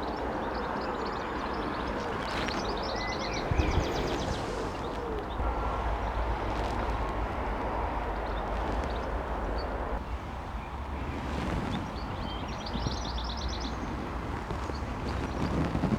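Outdoor ambience: a small songbird sings two short trills of rapid repeated high notes, a few seconds in and again near the end, over a steady low rumble.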